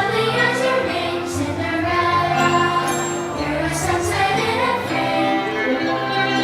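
Music with a choir singing, sustained and steady with no bangs standing out; it is the soundtrack of the fireworks show.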